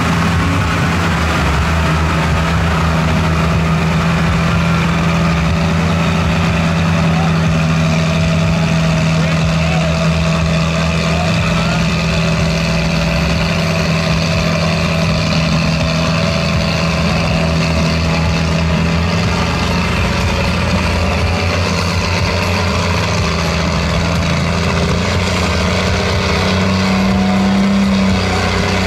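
Big-tyred lifted mud truck's engine running steadily as it churns slowly through deep mud, the engine note rising near the end.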